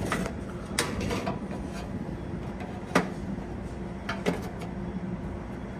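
Sharp metallic clicks and knocks of sheet-metal blower parts being handled, three of them, about a second, three seconds and four seconds in, over a steady low mechanical hum.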